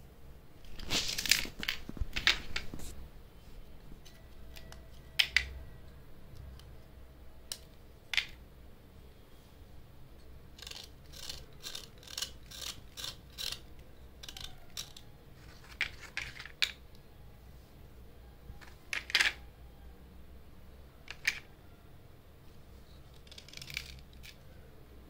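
Small knife blade scraping the outer layer off white slate pencils, in short separate scrapes with a quick run of strokes around the middle.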